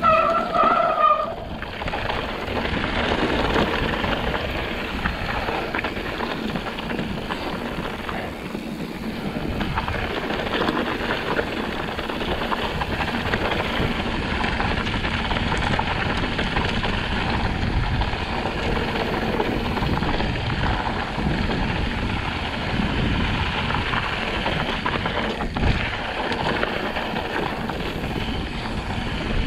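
Riding noise from a mountain bike descending a dirt trail: wind buffeting the camera microphone over the rumble and rattle of tyres and bike on rough ground. A brief squeal is heard in the first second.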